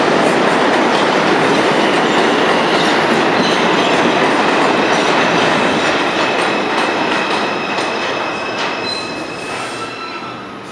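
An R142 subway train pulls into the station and brakes, with a loud rumble of wheels on rail. Thin, steady high squealing tones ride over the rumble, and the whole sound fades as the train slows toward a stop.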